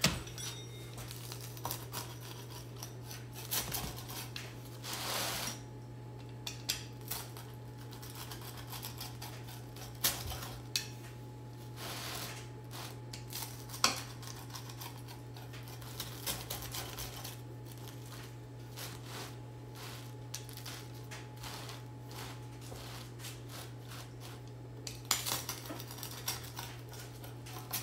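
A pizza wheel cutting through a crisp-crusted Neapolitan pizza on a wooden board: repeated strokes of crunching crust and clicks of the blade, over a steady low hum.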